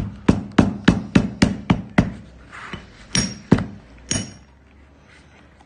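Hammer tapping on a freshly glued leather seam to press it so the glue bonds: a quick run of about eight taps, three to four a second, then three more spaced strikes, the last ones with a brief ring.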